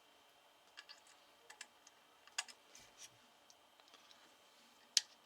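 Scattered light clicks and taps from a soldering station and its iron holder being handled. There are a few small pairs early on, a clearer click in the middle and the sharpest one near the end.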